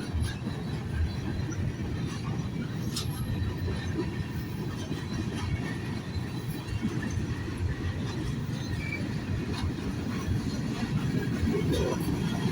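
Union Pacific train giving a steady low rumble, with a few faint ticks over it.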